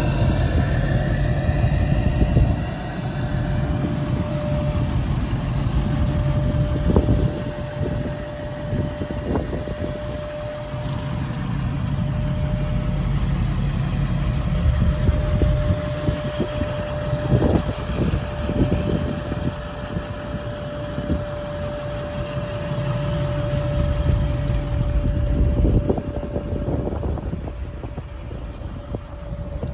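Ford F-350 Super Duty pickup engine idling, a steady low rumble that is loudest at the start, with a thin steady whine through most of it and a few knocks.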